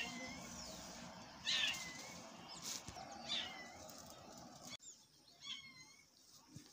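A handful of short, high-pitched animal calls, a second or two apart, over faint outdoor background; the background drops off suddenly about three-quarters of the way through.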